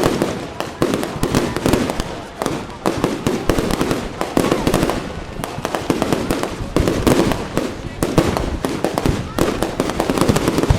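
Fireworks display: a dense run of bangs and crackles, many sharp reports a second with no pause.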